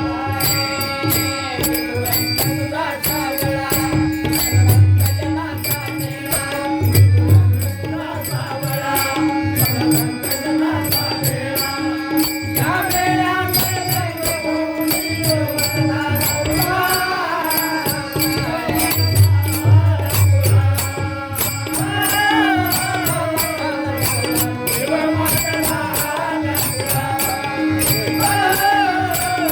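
A man singing a Marathi devotional song in a high, sliding folk melody, over a steady drone with drum beats and a jingling, rattling percussion rhythm.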